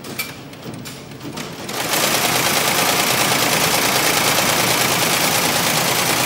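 ZSK JF08 embroidery machine starting up a little under two seconds in, after a few clicks, then stitching steadily at speed: its main shaft drive running again after the power drive repair.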